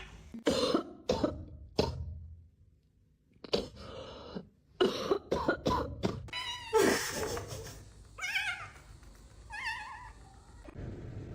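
A cat coughing in short, sharp fits, then two short meows near the end.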